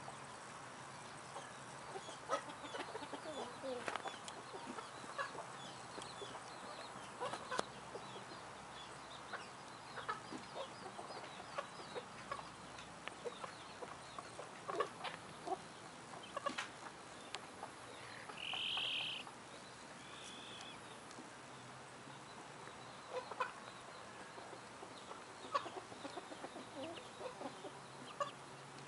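Silkie chickens clucking softly and now and then, short scattered calls over a quiet background. About two-thirds of the way through comes one louder, high-pitched call lasting about a second, with a fainter one just after.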